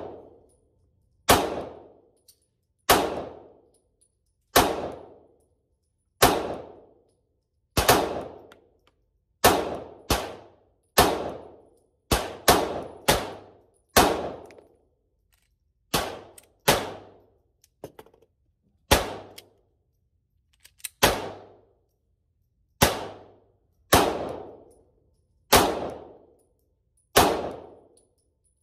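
9mm pistol fired in slow, steady shots, about one every second and a half with a few quicker follow-ups near the middle, each report ringing out and trailing off over about a second.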